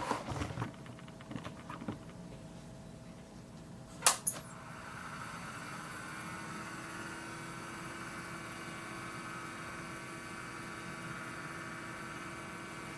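A few light handling knocks, then a sharp click about four seconds in as a vintage digital oscilloscope is switched on. It then runs with a steady hum made of several held tones, powering up without fault.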